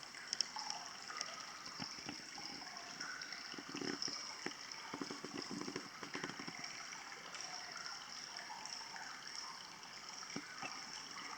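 Running water trickling and gurgling, with small irregular splashes.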